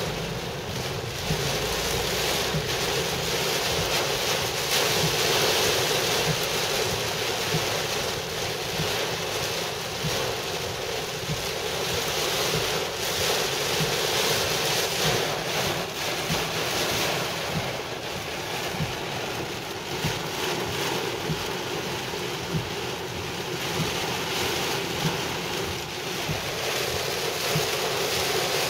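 Heavy rain falling hard on a car's roof and windshield, heard from inside the cabin: a steady rush that swells and eases in waves.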